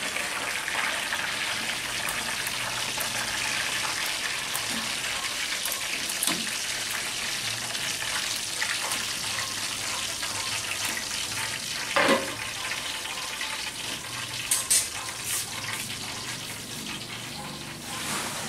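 Rat meat sizzling in a frying pan of sauce, with a spatula stirring it. A sharp knock of the utensil on the pan about two-thirds through, and two more soon after.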